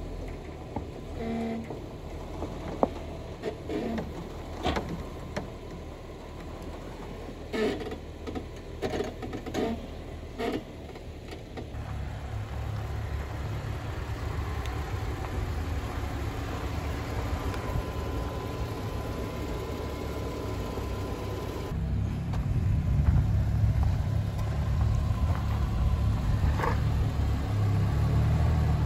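Jeep Wrangler Rubicon crawling over a large boulder at low speed: scattered knocks and crunches for the first half, then the engine's low rumble builds about halfway through and grows louder again near the end as it works under load.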